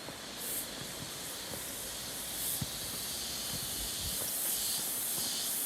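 Loud chorus of cicadas buzzing, a high hiss that swells and fades in waves about once a second and grows louder toward the end.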